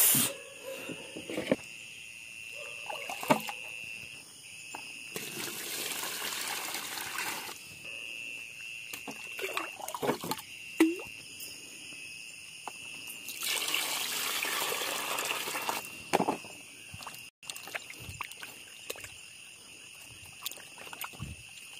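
Water scooped with a plastic dipper and poured into a basin of small fish, in two pours of about two seconds each, with small splashes as a hand stirs and washes the fish in the water.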